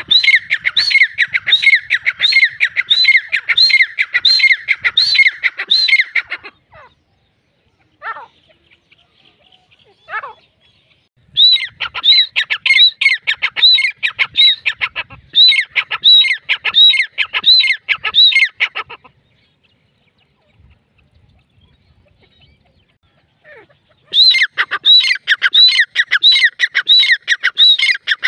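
Female grey francolin (teetar) calling: runs of high-pitched, arched notes, about two a second, in three bouts separated by pauses of a few seconds.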